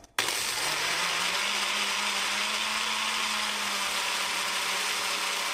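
Ninja Fit 700-watt personal blender switching on suddenly and running steadily at full speed, blending ice, kale and fruit into a green smoothie. The sound is heard with the volume turned down.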